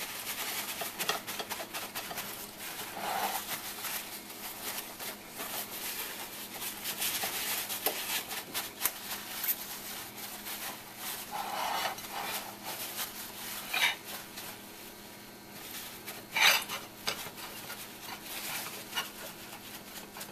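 Paper towel rustling and rubbing against the skin of a raw whole chicken as it is patted dry, with scattered small knocks against the plate. A sharper knock sounds about two-thirds through, and a louder one a few seconds later.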